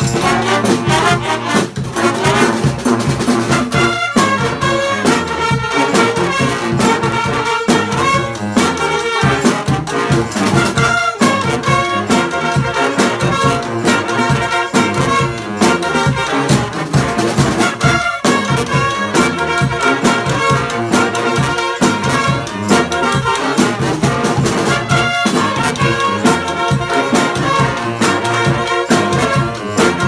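Live street brass band playing a tune: saxophones, trumpets and a sousaphone over a steady marching-drum beat.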